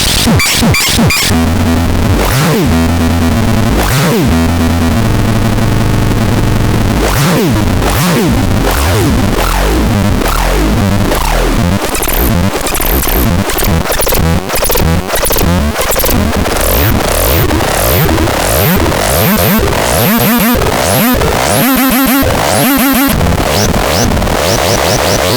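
Harsh electronic noise-synth sounds from the Tadetralox being demonstrated. The first half has low stepping drones and sliding pitch sweeps. From about halfway on, a rapid series of short high chirps sweeps downward over a buzzing bed.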